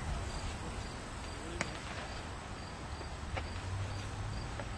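Insect chirping faintly, repeating about three times a second, over a steady low rumble of open-air ballfield ambience, with a couple of faint clicks.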